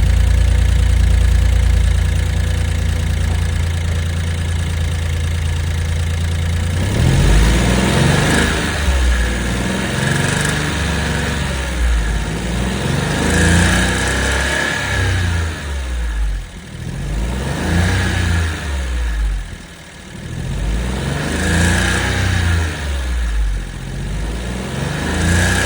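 Suzuki Jimny JB64's 660 cc turbo three-cylinder engine idling steadily, then revved repeatedly from about seven seconds in, each rev rising and falling, with a thin steady high tone throughout. The engine has an abnormal noise (異音) that the owner judged bad enough to replace it.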